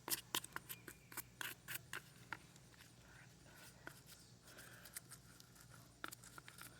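Brush scrubbing a lawn mower air filter base and primer bulb in soapy degreaser water: quick scratchy strokes for the first two seconds or so, then only a few scattered faint strokes.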